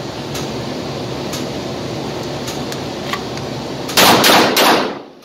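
Three shots from a Walther PPQ 5-inch 9mm pistol fired in quick succession, about a third of a second apart, about four seconds in. Before them there is a steady background hum.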